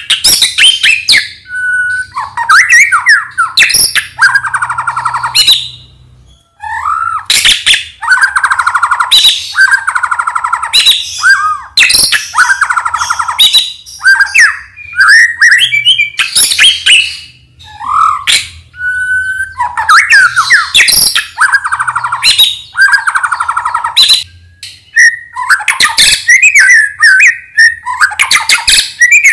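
Medan-type white-rumped shama (murai batu) singing a loud, varied song. Clear whistles rise and fall, alternating with long, rapid buzzing rattles, phrase after phrase, with a brief pause about six seconds in.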